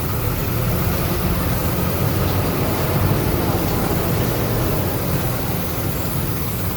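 Agrale MA 15.0 midibus running, heard from inside the cabin: a steady low engine and drivetrain rumble.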